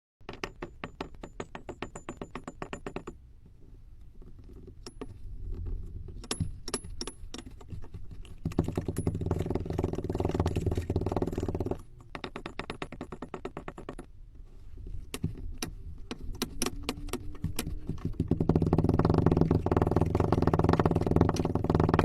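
Kinetic sand crunching and crackling as it is worked: rapid crisp clicks and grainy scraping in several short stretches that start and stop abruptly, growing denser and louder toward the end.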